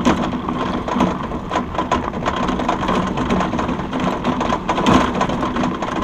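Wheels and frame of a husky team's training rig rattling and crunching steadily as it rolls over a gravel track.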